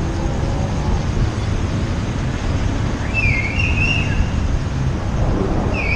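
Steady low rumble of wind on the microphone and wet-road traffic noise while riding a bicycle, with a high squeal about three seconds in lasting under a second and a shorter squeal near the end.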